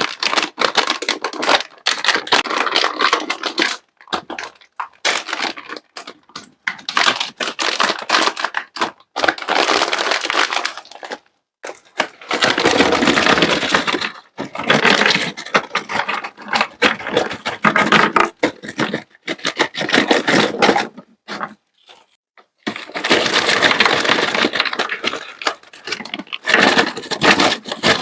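Sweets being handled and dropped into a party platter: bursts of dense clicking, crackling and crinkling, each lasting one to three seconds, with short silences between them.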